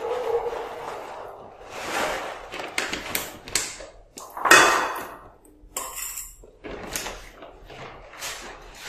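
Cats and kittens moving about food bowls and a cardboard box on a tiled floor: scattered knocks, scrapes and rustles, with one louder clatter about halfway through.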